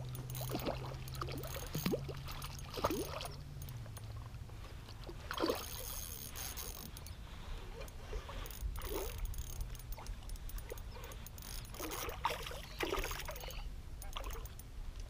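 Light water splashing from a hooked trout thrashing at the surface in the shallows, in scattered short bursts.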